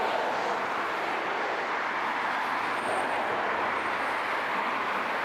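Steady outdoor street noise: passing traffic mixed with wind, an even rushing sound with no distinct events.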